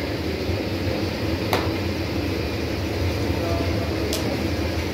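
Steady low machinery hum with two sharp clicks, one about a second and a half in and one near the end.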